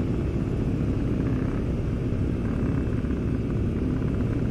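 Motorcycle engine running steadily under way, a continuous low rumble.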